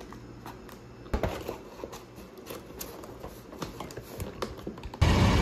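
Paper takeout box being handled and its lid folded shut: a sharp knock about a second in, then a run of light cardboard taps, clicks and crinkles. Near the end it cuts abruptly to a steady low rumble of street traffic.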